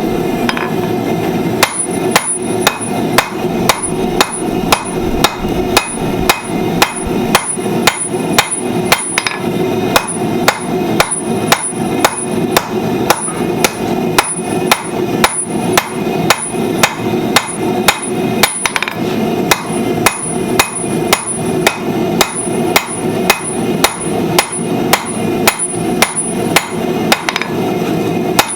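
Blacksmith's hand hammer striking hot steel on an anvil while forging tongs, a steady run of blows about three a second that starts a couple of seconds in. A steady roar runs underneath.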